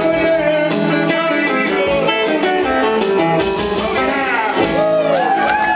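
Live band playing a blues number, electric guitar to the fore over keyboard, with sliding notes near the end.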